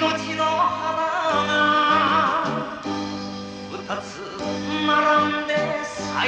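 Enka music playing over the hall's sound system: the instrumental introduction, with a wavering lead melody over held bass notes.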